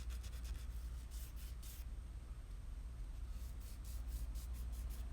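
Sanding block rubbing along the edge of a cured epoxy resin coaster in short repeated strokes, taking down the raised lip. Under it runs a steady low hum.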